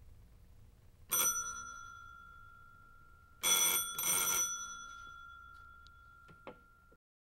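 Electric alarm bell of a carnival wire-and-wand game ringing as the wand touches the rod: a short rattling ring about a second in, then a longer double ring around three and a half to four and a half seconds, its tone slowly dying away. A light click near the end.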